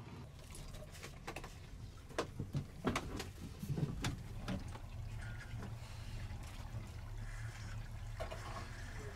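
Clicks and knocks of kitchen things being handled in a boat's small cabin while a stovetop coffee maker is set up on a gas stove, thickest in the first half, over a low steady hum.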